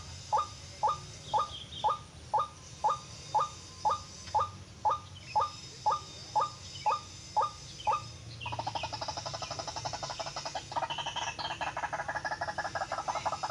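White-breasted waterhen calls: a short rising call repeated about twice a second for the first eight seconds, then a fast, continuous pulsing chatter that runs on with one short break.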